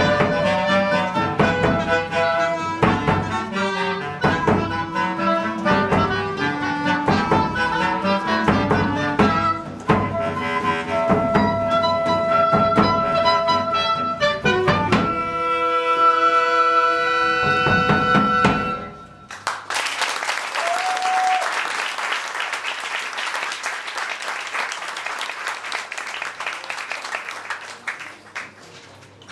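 Woodwind ensemble of clarinets with drums playing a lively tune that settles into long held notes and stops about 19 seconds in. Audience applause follows and fades out near the end.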